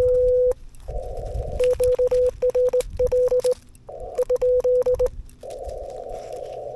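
Morse code tones at about 500 Hz from a YAESU FTX-1F transceiver on 40 m CW. A long steady tone cuts off about half a second in, and several groups of short keyed dots and dashes follow. Band hiss through the radio's narrow CW filter fills the gaps and carries on after the last group.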